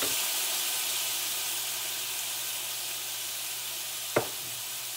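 Onions and sweet peppers sizzling in butter in a cast-iron skillet, a steady hiss that fades a little, with a single sharp knock about four seconds in.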